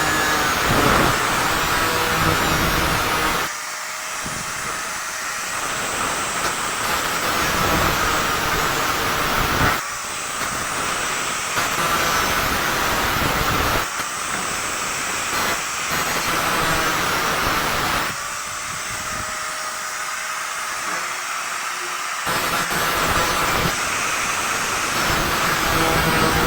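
Power tool cutting through a metal stovepipe to shorten it: a steady hissing whine that eases off for a few seconds about four seconds in and again near two-thirds of the way through.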